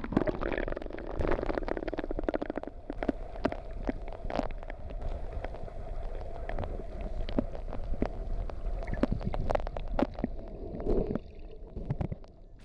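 Muffled water sound picked up by a camera held under the surface: a steady low rumble of moving water with many sharp clicks and crackles, quieting near the end.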